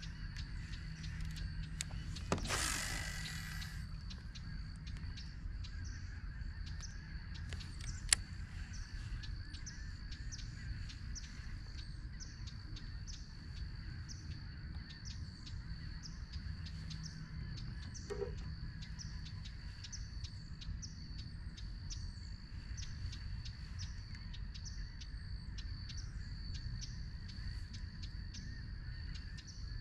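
Outdoor marsh ambience: birds calling over and over with short high chirps, over a steady low wind rumble. A brief rush of noise comes about two and a half seconds in, and a single sharp click about eight seconds in.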